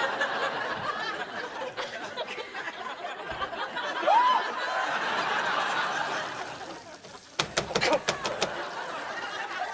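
Sitcom studio audience laughing, with one rising cry about four seconds in. The laughter dies down about seven seconds in, followed by a string of sharp clicks or knocks.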